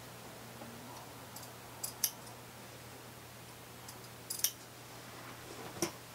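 Metal sewing shears snipping at the folded hem of a pair of jeans: sharp snips in quick pairs about two seconds and four and a half seconds in, and once more near the end.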